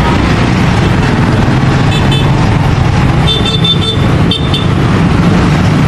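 Steady low vehicle rumble of passing road traffic, with short high-pitched horn toots about two seconds in and again in a couple of bursts between three and a half and four and a half seconds.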